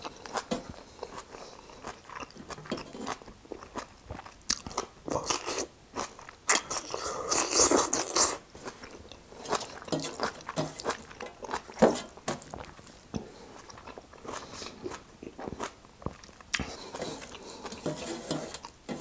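Close-miked chewing of a mouthful of rice and greens, with many short wet mouth clicks and a louder stretch about seven seconds in.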